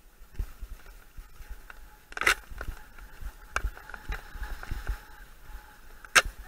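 Mountain bike ridden fast over a rough dirt forest trail: a rumble of bumps with many small knocks and rattles from the bike and camera mount. A loud sharp crack or scrape comes about two seconds in and another near the end.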